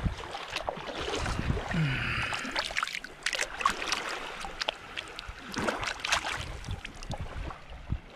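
Shallow seawater splashing and sloshing in irregular bursts as a hand dips and swishes a box jellyfish at the surface, with some wind rumble on the microphone.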